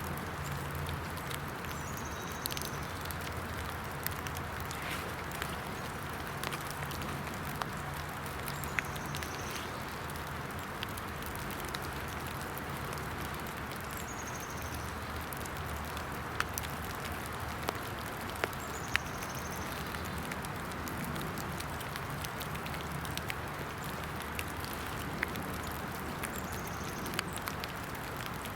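Steady rain falling in woodland, with scattered sharp drop ticks. A bird's short high falling call repeats about every five to six seconds.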